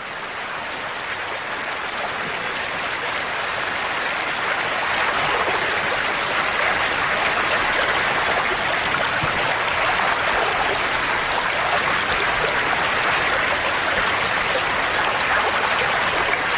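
Steady rushing of river water, swelling up over the first few seconds and then holding even.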